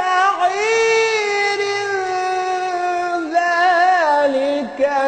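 A man's voice reciting the Quran in the melodic, drawn-out tajweed style, holding long notes that step down in pitch, with a wavering ornament about three and a half seconds in.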